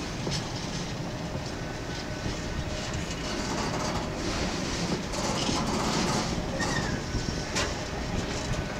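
Freight train of empty FKA container flat wagons rolling past on the track: a steady rumble of wheels on rail with scattered clicks as wheels cross rail joints, getting louder a little past halfway.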